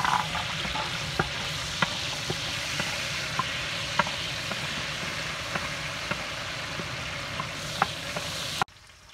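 Whole small red onions sizzling steadily in hot oil in a large metal wok, with a few sharp knocks as a wooden spatula stirs them against the pan. The sizzle cuts off suddenly near the end.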